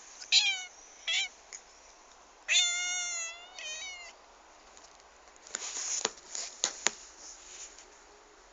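Domestic cat meowing in creaky calls that sound like a door creaking: two short calls, then a long held call and a shorter one after it. A few sharp clicks follow later.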